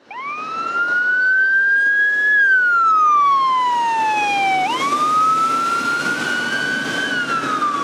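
Emergency siren wailing in a slow wail pattern: the pitch climbs for about two seconds, slides down for about two seconds, then climbs again and begins to fall near the end.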